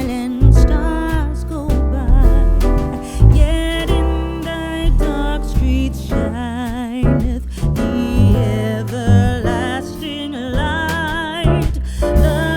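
A song with a singer, guitar and a strong bass beat.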